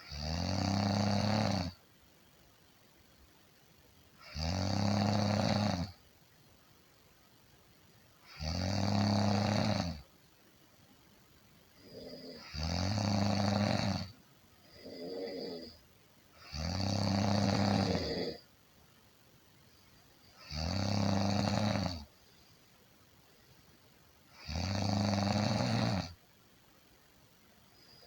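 A person snoring in a slow, regular rhythm: seven long, low-pitched snores, each under two seconds, about one every four seconds. A shorter, softer snore falls between two of them about halfway.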